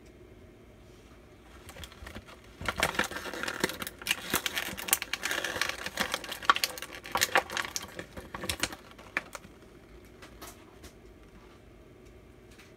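Hands handling small plastic toy figures: a dense run of quick clicks and crinkly rustling that starts a few seconds in and dies away well before the end.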